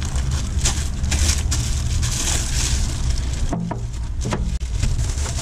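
Clear plastic wrapping crinkling and rustling as gloved hands pull it off a car amplifier, with crackles that thin out briefly about three and a half seconds in, over a steady low hum.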